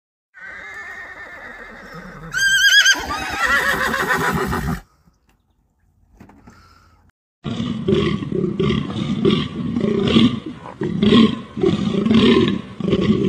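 Plains zebra calling: a wavering, horse-like braying call that grows louder about two seconds in. After a short pause comes a run of rapid harsh calls, several a second.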